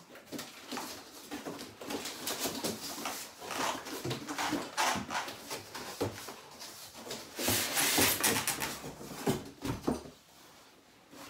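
Cardboard boiler box being unpacked by hand: packing straps pulled, flaps opened and the box shifted, with irregular rustling, scraping and knocking of cardboard. The scraping is loudest about eight seconds in and dies down in the last second.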